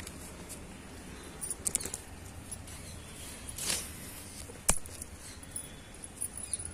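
Soft rustling of leaves and light clicks from hands working through tomato plants while picking the fruit, with one sharp click a little past the middle.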